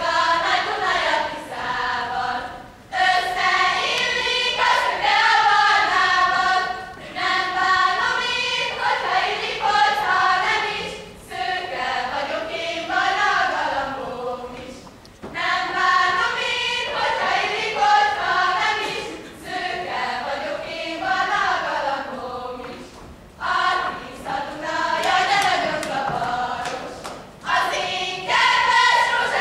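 Group of girls and young women singing a Hungarian folk song together in unison, in phrases of a few seconds with short breaks between them, the kind of song that carries a girls' circle dance.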